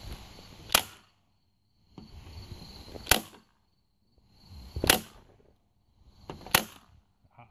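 A staple gun firing four times, a sharp snap every second and a half to two seconds, driving staples through convertible-top fabric; some staples strike old staples underneath and fail to seat.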